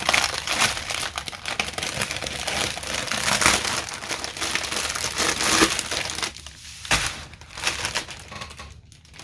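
Plastic bags of diamond painting drills crinkling and rustling as they are handled, dense for about six seconds, then sparser and quieter.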